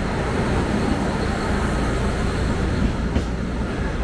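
Passenger train moving along a station platform: a steady rumble of wheels and running gear.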